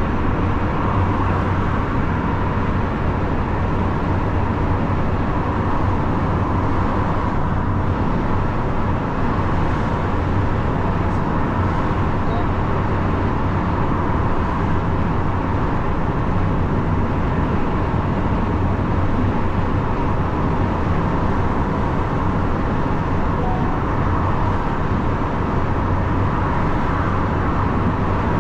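Lorry driving at a steady motorway speed: a steady low engine drone with even tyre and wind noise.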